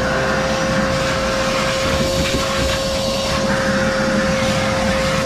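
Wet/dry shop vacuum running steadily, a single high motor whine over a rush of suction.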